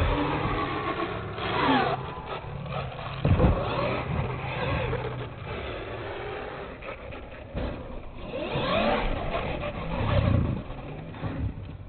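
Motor of a radio-controlled monster truck whining up and down with the throttle, with a few sharp thumps as the truck lands and tips over in the dirt. The sound fades out near the end.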